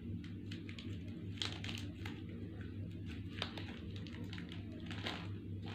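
Faint crinkling and scattered small clicks of a plastic snack pouch being handled and opened, over a steady low hum.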